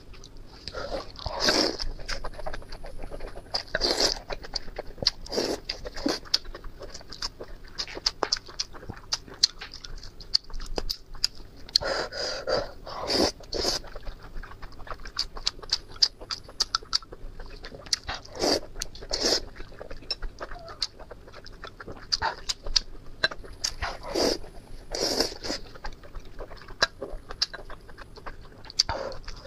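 Close-miked mukbang eating: wet chewing and quick lip-smacking clicks throughout, with a slurp every few seconds as saucy meat slices are sucked in from the chili broth.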